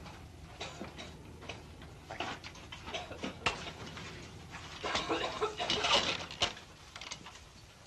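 Shuffling footsteps, rustling clothes and irregular knocks as several men push through a wooden doorway, busiest and loudest about five to six and a half seconds in.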